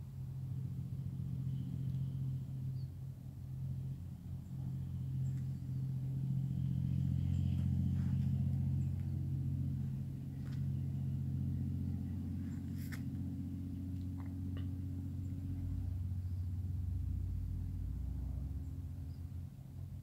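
Low, steady engine rumble that swells a little partway through, with a few faint short clicks and chirps above it.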